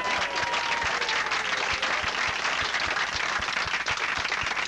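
A crowd applauding after a group sing-along, many hands clapping at once. A single voice trails off on a falling note in the first second.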